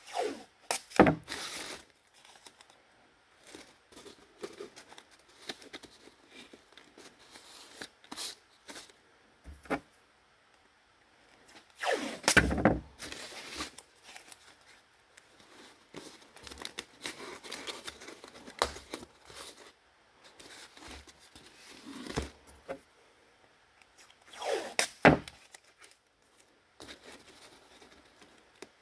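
Blue painter's tape pulled off the roll and torn, three longer pulls about a second in, around twelve seconds and near twenty-five seconds, with lighter handling noise of the taped cardboard mock-up between.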